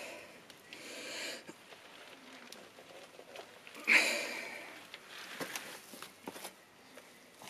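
Folding bicycle creaking under foot pressure on the crank and pedal: one loud creak about four seconds in that fades over about a second, a fainter one near the start, and a few light clicks afterwards.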